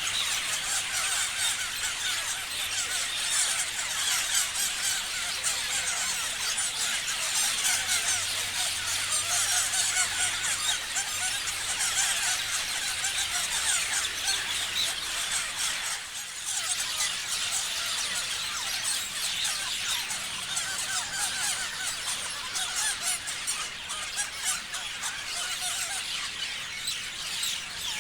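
A flock of parrots chirping and squealing together, a dense chatter of many short high calls overlapping without a break, thinning briefly about halfway through.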